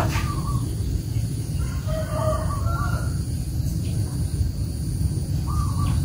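Bird calls, a short one at the start, a longer one about two seconds in and a brief one near the end, over a steady low rumble.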